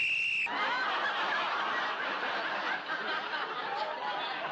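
A short whistle blast rising in pitch and then holding briefly, given as the starting signal. An audience laughs right after it and keeps on through the rest.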